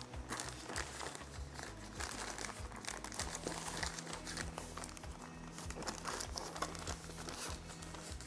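Thin plastic wrapping bag crinkling on and off as hands turn it over and pull at it to get the router inside out.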